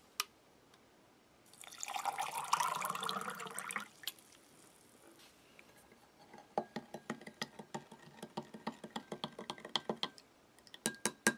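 Water poured into a drinking glass over powdered drink crystals for about two seconds. Then a spoon stirs the drink, clinking quickly and repeatedly against the glass with a faint ring, followed by a couple of taps near the end.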